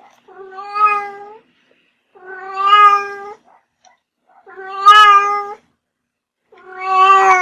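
A cat meowing: four long, drawn-out meows, each about a second long and evenly spaced about two seconds apart, steady in pitch and growing louder toward their ends.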